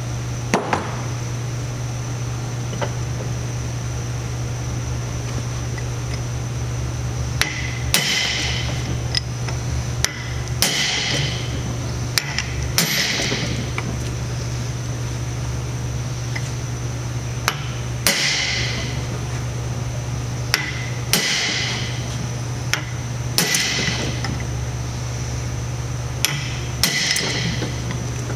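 Hammer striking a steel chisel against a bearing lock nut on a steel shaft, tightening the nut. A dozen or more sharp, ringing metal strikes at irregular intervals, over a steady low hum.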